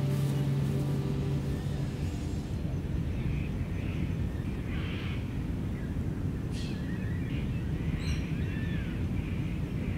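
Open-air field ambience: a steady low rumble with birds calling now and then, including a few quick chirps later on. A held music chord fades out over the first two seconds or so.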